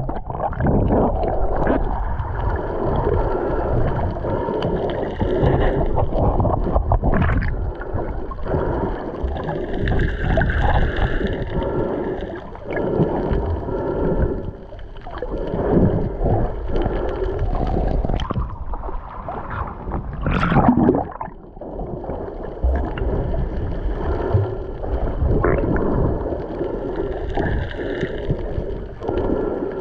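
Muffled underwater sound picked up by a submerged camera: water sloshing and gurgling around the housing, with a deep noise that swells and fades every few seconds.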